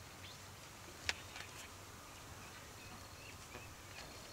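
Duck eggs clicking together in a woven bamboo basket: one sharp click about a second in as an egg is set down among the others, with a few lighter ticks. Faint bird chirps in the background.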